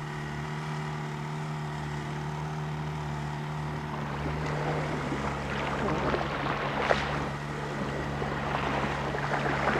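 Outboard motors of Zodiac inflatable boats running steadily at sea, a constant low drone, with water rushing and splashing that grows a little louder in the second half.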